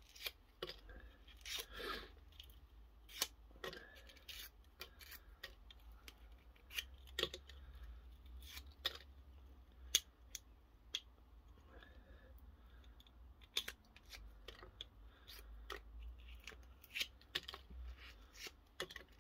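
White plastic insulating pieces being picked and pulled by hand out of the slots of a refrigerator compressor motor's steel stator core. Faint, irregular clicks and scratches of plastic against the steel laminations.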